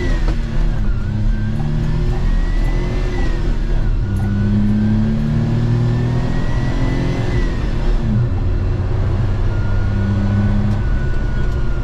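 1995 Suzuki Carry kei truck's small three-cylinder engine pulling the truck away, heard from inside the cab, with a light whistling whine that climbs with the revs. The whine drops back twice and holds steady near the end.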